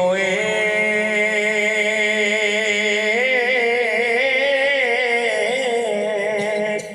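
A naat reciter singing one long held note of a devotional naat, with the pitch wavering and ornamented throughout; it breaks off just before the end.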